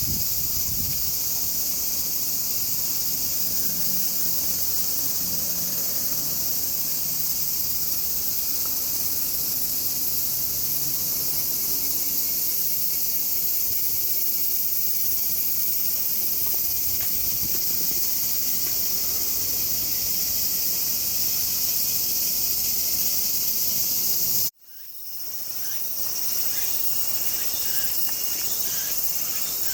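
Steady, high-pitched chorus of insects chirring. It cuts out suddenly about three-quarters of the way through and fades back in.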